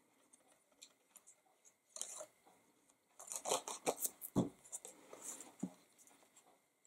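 Faint rustling and scraping of stiff embossed cardstock being handled while liquid glue is spread on a strip. Past the middle, two short knocks as the plastic glue bottle is set down on the work mat and the strip is pressed onto the paper box band.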